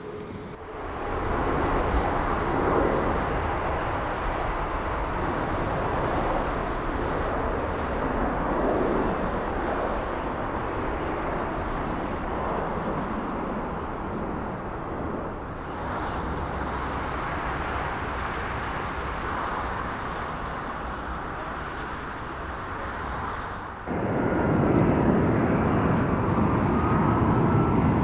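Jet engines of a Qantas Airbus A380 (Rolls-Royce Trent 900s), a steady broad rush of engine noise that jumps abruptly in level about half a second in, again around 16 seconds, and louder near 24 seconds, with a faint high whine near the end.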